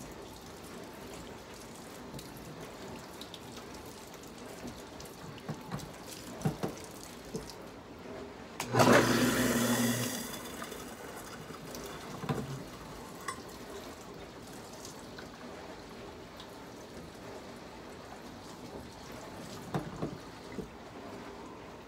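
Kitchen tap turned on for about a second and a half, water running into the sink with a low hum, then shut off. A few light clicks and knocks before and after.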